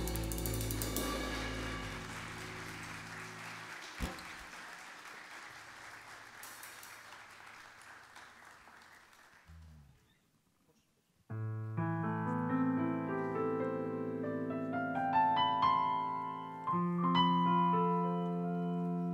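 A band's final chord and cymbal ringing out and slowly fading, with a small knock about four seconds in. After a short break of silence, a keyboard with a piano sound starts alone, playing a slow intro of held notes and chords.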